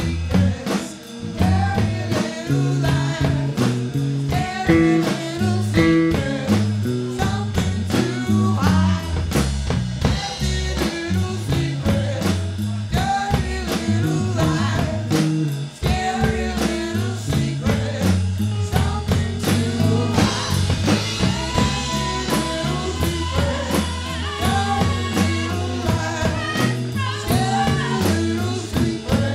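Live band playing a rock/blues song: women's voices singing over electric guitar, electric bass and a drum kit.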